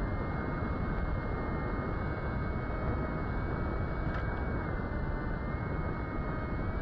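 Brushless motor and propeller of an FPV plane in flight, whining steadily with slight shifts in pitch, under heavy wind rush across the onboard camera's microphone.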